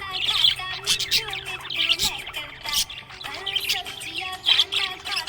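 Budgerigars chirping and warbling in rapid, overlapping bursts of high twitters, a busy chatter that does not let up.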